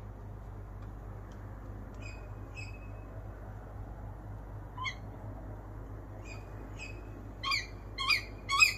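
Tawny owls calling: a few faint, short shrill calls early on, then from about seven seconds in a run of loud, sharp calls rising in pitch, about half a second apart. A steady low hum runs underneath.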